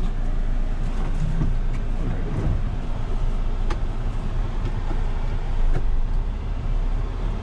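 2020 Mahindra Thar's diesel engine running at a steady low crawl off-road, with two short sharp clicks, one near the middle and one about two seconds later.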